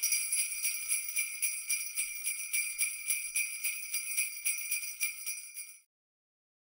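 Sleigh bells shaken in a steady rhythm, about four shakes a second, with a bright high jingle; they cut off suddenly near the end.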